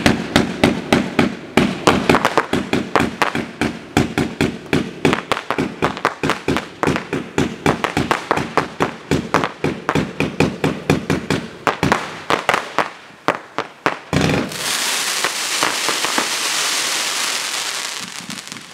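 Dominator 'Breaking News' 49-shot fireworks cake firing multi-color crossettes: a fast, steady run of sharp bangs, several a second, from the tubes launching and the stars splitting. About 14 seconds in a heavier thump comes, followed by about four seconds of dense crackling hiss that fades near the end.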